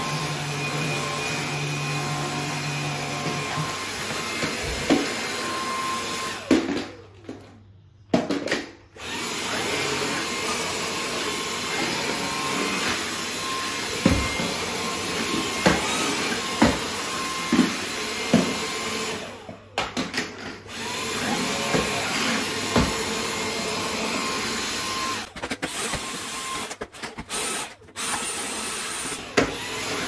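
Stick vacuum cleaner running steadily on wooden stairs, with several sharp knocks. Its sound drops out briefly a few times, once near a third of the way in and again several times near the end.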